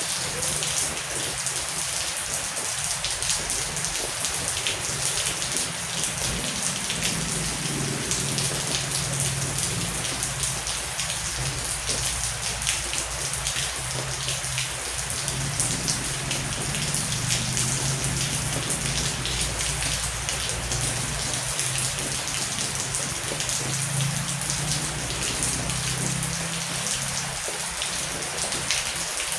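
Heavy rain falling steadily, a dense hiss full of fine drop patter. A low rumble of distant thunder swells in twice, about a quarter of the way in and again near the end.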